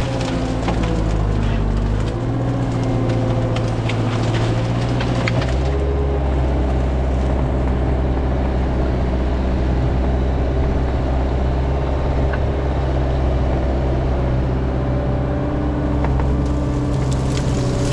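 Caterpillar 306 mini excavator's diesel engine working under load, its note dropping and steadying about five seconds in. Wood cracks and splinters in the first few seconds and again near the end.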